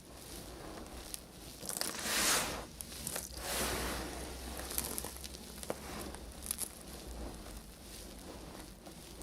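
Knife cutting through a bar of soap with a crisp, crunchy scraping; the loudest cuts come about two seconds in and again about three and a half seconds in, with small clicks between.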